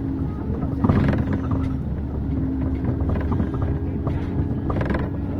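City bus heard from inside the cabin while driving: a low running drone with a steady hum and light rattles from the body, and a louder knock about a second in.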